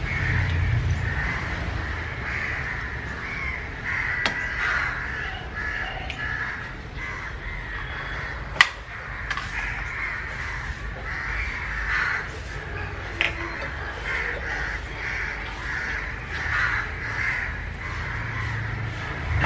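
Crows cawing again and again in the background, with three sharp clicks from kitchenware being handled, the loudest about halfway through.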